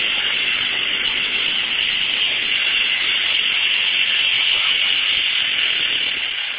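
Toyota Paseo's four-cylinder engine held flat out at full revs while it is run to destruction: a loud, steady, hissing sound with no change in pitch.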